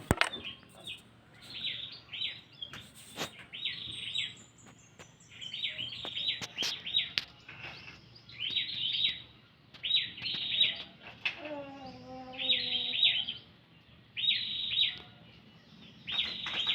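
Prinia (prenjak) singing: short phrases of rapid, high chirping notes, repeated every second or so. Near the middle a lower, drawn-out sound falls in pitch for about two seconds.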